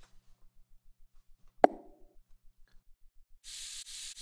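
Animation sound effects: a single sharp pop with a short ringing tone about a second and a half in, then near the end a steady high hiss lasting nearly two seconds, broken by a couple of brief dips.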